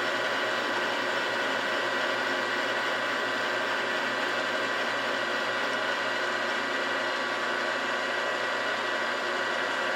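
Milling machine running steadily with a boring head taking a boring cut in a cast base: an even motor and drive whine with several held tones.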